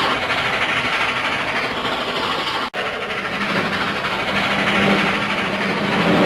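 Cartoon train sound effect: a train running steadily with a continuous rumble and clatter. It cuts out for an instant about a third of the way in, then carries on with a steady low hum added.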